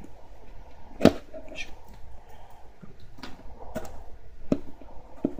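A small blade cutting and scraping at a cardboard box, as a series of short, sharp clicking scrapes with the loudest about a second in.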